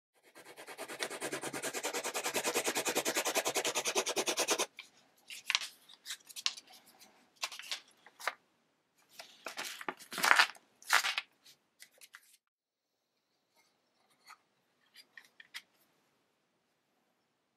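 Mechanical pencil scribbling rapidly back and forth on paper, a fast even scratching that stops suddenly after about four and a half seconds. Then the paper sheet rustles and crackles in a few short bursts as it is lifted and handled, with a few faint ticks near the end.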